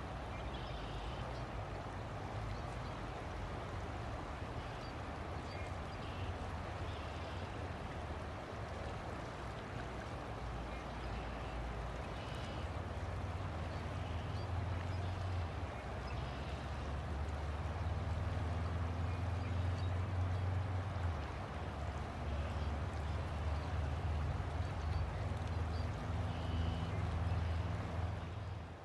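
River water flowing steadily, under a low rumble that grows louder about halfway through, with faint short high-pitched sounds scattered over it.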